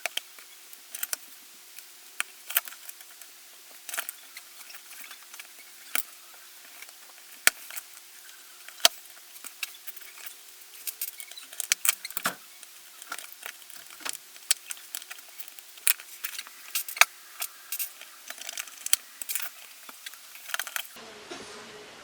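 Small metal and plastic parts of an airsoft V2 gearbox clicking and tapping as they are handled while the safety/selector mechanism is replaced. The clicks are irregular, about one or two a second, over a faint steady hum.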